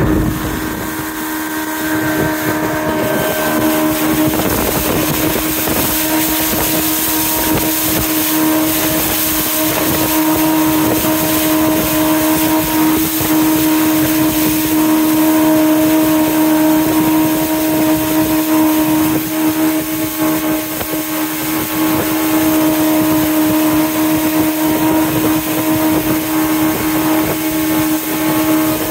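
Jet boat running down river at steady speed: its engine gives a constant hum over a continuous hiss of water and wind.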